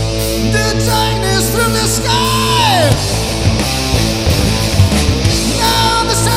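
Live rock band playing a heavy, loud song: guitars, bass and drums, with a high line that slides steeply down in pitch about two and a half seconds in.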